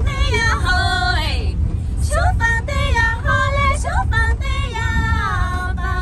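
Women singing a Miao flying song: long, high held notes joined by sliding rises and falls in pitch. Under it runs the steady low rumble of the vehicle they are riding in.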